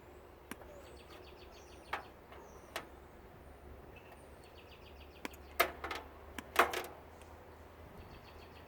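Scattered sharp clicks and knocks of tools and parts being handled while wiring is cut and pulled from a tankless water heater, with a louder cluster of clacks about two-thirds of the way through.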